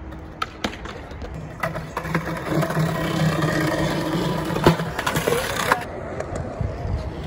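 Skateboard wheels rolling over concrete, a steady rumble that builds from about a second and a half in and drops away near the end, with a few sharp clicks.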